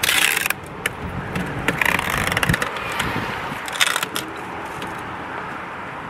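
Packing tape and a package being handled: short bursts of scraping, crackling noise with scattered clicks, the loudest right at the start, another around two seconds in and a brief one near four seconds.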